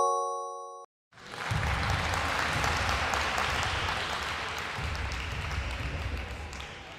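A held electronic chime chord cuts off just under a second in, then applause rises and runs for about six seconds, fading out near the end: a recorded crowd clapping, played as the reward sound for a revealed answer.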